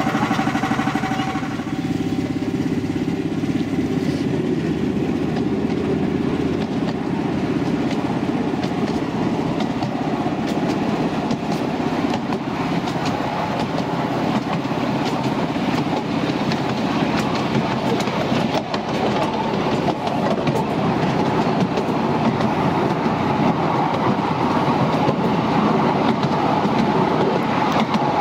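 Miniature railway train hauled by a diesel-outline locomotive: the engine runs steadily, then from about two seconds in the train moves off and runs along the track, wheels rumbling on the rails, heard from the passenger carriages.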